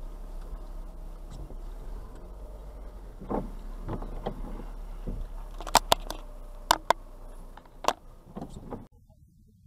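Low, steady hum of a car crawling at walking pace, heard from inside the cabin, with a handful of sharp clicks past the middle. The sound drops away abruptly near the end.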